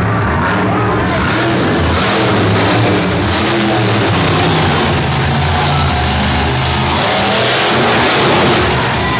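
Monster truck engine revving loudly, its pitch rising and falling as the throttle is worked, building up over several seconds and then easing off briefly near the end.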